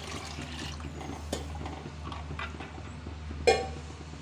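Tamarind water thick with ground spice paste being poured and stirred into a clay pot of hot oil tempering, a steady liquid hiss with a few light knocks, and a sharp ringing utensil clank about three and a half seconds in.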